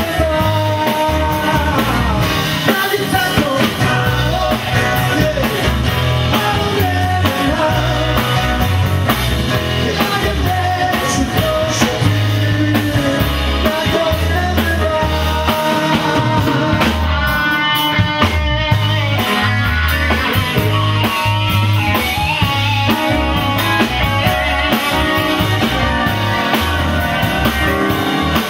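Live band playing a song: a man singing over acoustic and electric guitars, with a steady bass line and beat.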